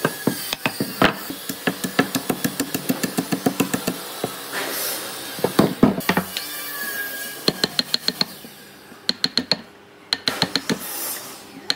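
Claw hammer knocking out the wood between saw kerfs in an old wooden beam to clear a notch: rapid repeated knocks, about four a second, with a few louder blows.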